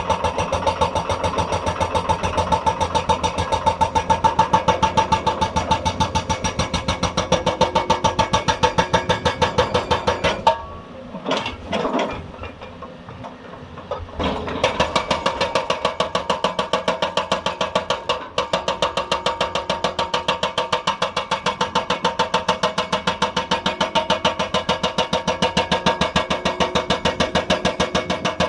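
Hydraulic breaker on a Hyundai 290 excavator hammering rock in a rapid, even run of blows over the running engine, stopping for a few seconds just before the middle and then starting again.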